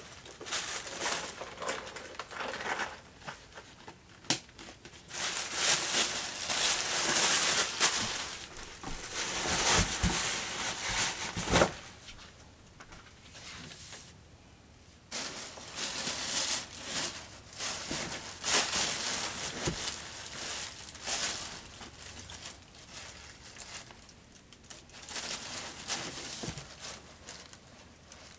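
Plastic wrapping crinkling and rustling in irregular spells as it is handled, with a quieter stretch about halfway through and a couple of light knocks near the middle.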